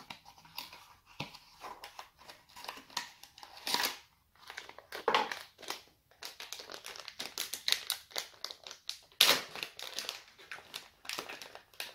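Small cardboard box being opened by hand and a circuit board pulled out of its plastic bag: a run of irregular crinkles, rustles and small clicks.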